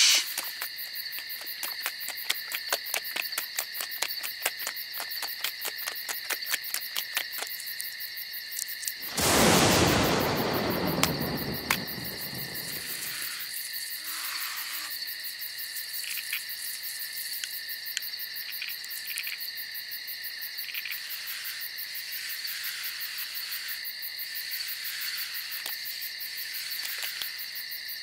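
Steady chorus of crickets chirping. About nine seconds in, a loud sudden burst of noise falls in pitch and fades away over about four seconds.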